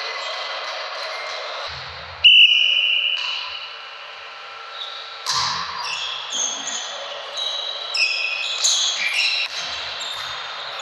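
A volleyball rally in a gym: a referee's whistle sounds sharply about two seconds in, then the ball is struck several times while sneakers squeak on the court floor.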